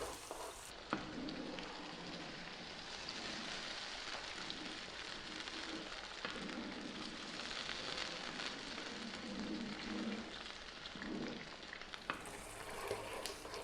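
Tomato sauce with onion, garlic and olives cooking in olive oil in a pan on medium heat, sizzling with a steady crackle.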